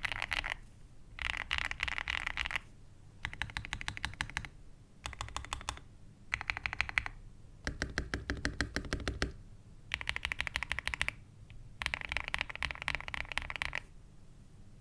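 Typing on a modded G66Pro (VN66) gasket-mounted mechanical keyboard with lubed Akko Rose Red switches, an aluminium plate and PBT keycaps. The keystrokes come in fast runs, about eight bursts with short pauses between them.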